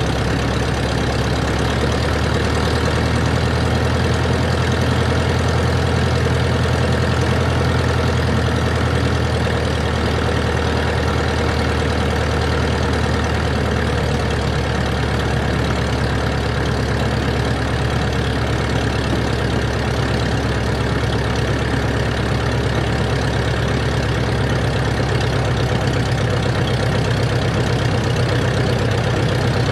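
Cessna 140's single piston engine and propeller running steadily, a constant drone with a slight change in pitch about two seconds in.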